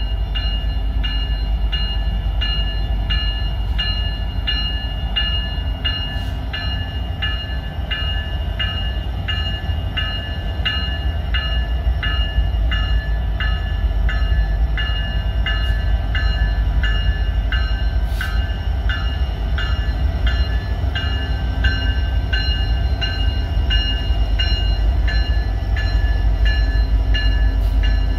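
Locomotive bell ringing steadily at about two strokes a second over the low rumble of a slow-moving freight train's diesel locomotives, CP 9352 and the EMD SD70ACu CPKC 7022.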